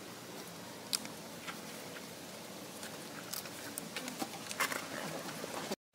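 Scattered light crackles and clicks of dry leaf litter over a steady outdoor hiss. The sound drops out for a moment just before the end.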